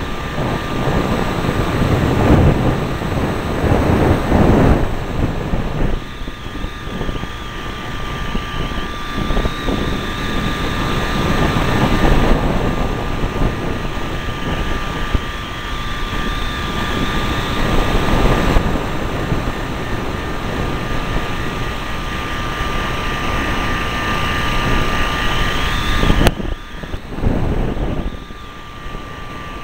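Small pusher engine and propeller of a foot-launched powered hang glider running steadily in flight, with a constant whine over wind rushing across a wingtip-mounted camera. The wind swells and eases, and the sound changes abruptly about three seconds before the end.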